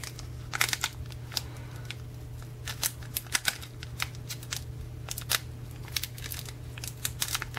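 Foil wrapper of a Pokémon booster pack crinkling and crackling as fingers slowly pull its crimped seal apart: a string of irregular sharp crinkles over a steady low hum.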